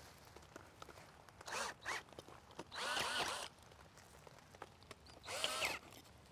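Cordless drill spinning a bulb auger into garden soil in three short runs, a rasping whine whose pitch wavers as the auger bites.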